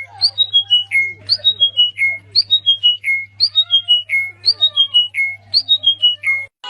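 Songbird singing the same short phrase over and over, five or six clear whistled notes stepping down in pitch, about once a second, with fainter calls underneath. The song cuts off abruptly near the end, and a steady low hum runs beneath it.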